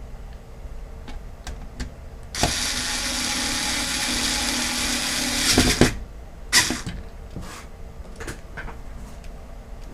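Electric screwdriver running for about three and a half seconds, driving a cover screw back into a computer power supply. Sharp clicks and knocks of handling come before and after it, with a loud knock as the run stops and another just after.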